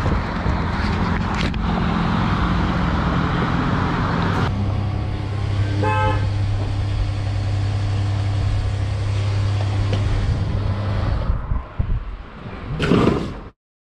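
A motorcycle engine runs steadily, and a short car horn toot sounds about six seconds in. The engine sound fades out near the end, followed by a brief loud noise.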